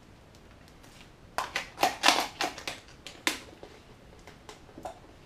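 Rummaging in a box and bag of small model-locomotive parts: a quick run of sharp plastic clicks and rustles starting about a second and a half in, then a few lighter clicks.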